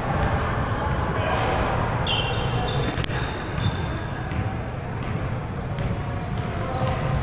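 Basketball game on a hardwood gym floor: sneakers squeak sharply many times, and the ball bounces and feet thud, with players' voices echoing through the big hall.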